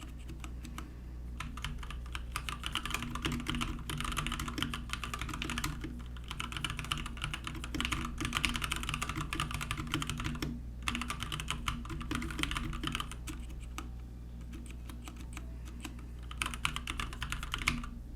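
Fast typing on a Keychron K6 wireless mechanical keyboard: a continuous clatter of keystrokes, broken by a few short pauses.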